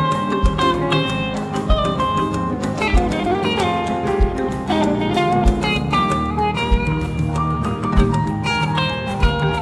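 Instrumental band music: a plucked melodic lead over a bass line, with a regular low drum beat.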